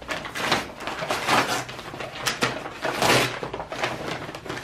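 Brown paper mailer bag being opened and handled by hand: continuous crinkling and rustling of stiff paper, with several sharper crackles.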